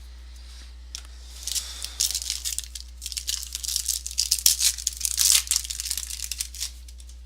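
A 2014 Topps Prime Football card pack being torn open, its wrapper crinkling in a run of crackly rustles that lasts about five seconds.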